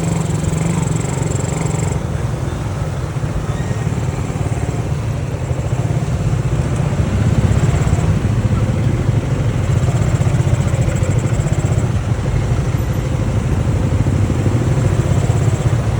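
Honda C70 motorcycle's small single-cylinder four-stroke engine running steadily under way, getting a little louder about seven seconds in.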